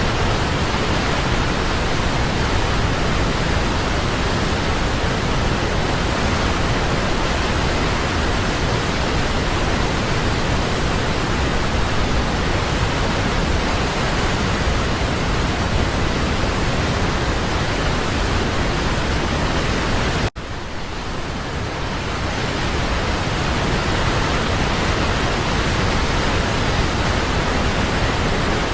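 Waterfall rushing in a steady, dense roar of falling water. About two-thirds of the way through the sound cuts out for an instant, then returns a little quieter and swells back to full over a couple of seconds.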